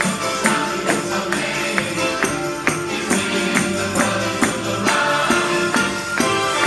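Worship song playing with a steady beat of about two strokes a second, with tambourine jingles over it.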